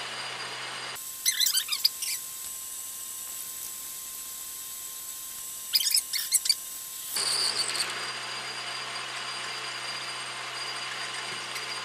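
Logan metal lathe running while a twist drill in the tailstock chuck is fed through a cast iron blank; the drill gives short high squeals twice, about a second in and again around six seconds in.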